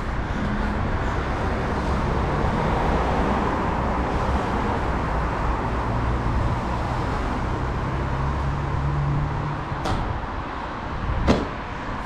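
Steady outdoor street background noise with a low engine hum in the middle, then two sharp knocks near the end, the second and louder one a freerunner's shoes landing on paving.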